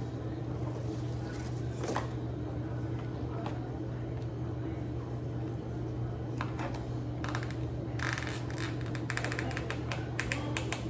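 Steady low hum under a few isolated clicks, then a quick run of crackling clicks in the last few seconds: food and its packaging being handled and eaten.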